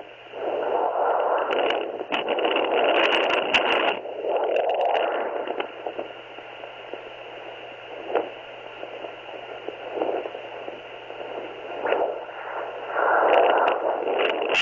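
Handheld fetal Doppler monitor's speaker giving steady hiss and static, with louder swishing swells as the probe is moved over the gel-covered belly while searching for a heartbeat.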